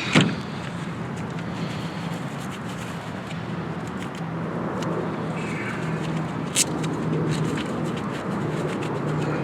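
Steady low outdoor background hum, like a running vehicle engine or nearby traffic, with a sharp click right at the start and another about six and a half seconds in. No rotary hammer is running.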